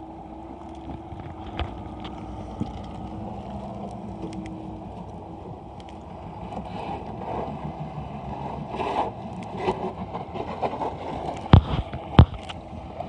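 Volvo FMX truck's diesel engine running as the truck drives through a partly frozen river, with broken ice and water scraping and knocking around the cab and wheels. Two loud sharp knocks near the end.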